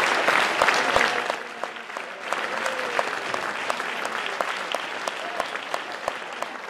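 Theatre audience applauding, a dense patter of many hands clapping that drops to a softer, thinner clapping about a second and a half in.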